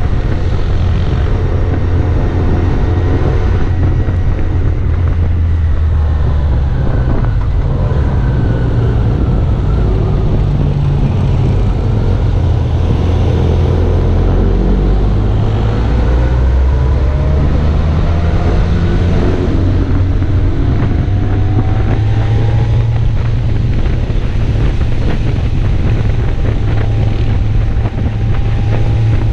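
Motorcycle engine running under way, heard from on the bike, its pitch rising and falling with the throttle through the bends, with wind noise on the microphone.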